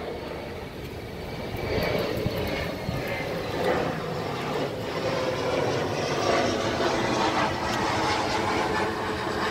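Loud noise of a large engine close by, swelling about a second and a half in and then holding steady.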